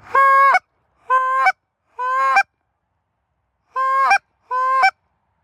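Five loud honks blown on a Canada goose call, each about half a second long and breaking upward at its end: three in quick succession, a pause, then two more.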